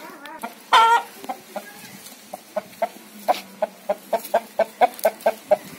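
Chicken clucking: one louder call just under a second in, then a quickening run of short clucks, about four a second.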